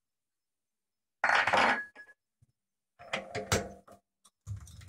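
Metal clinks and clanks as a chuck key is worked in a four-jaw lathe chuck and pulled out, with the lathe stopped. There are two clattering bursts, about a second in and about three seconds in, then a duller thump near the end.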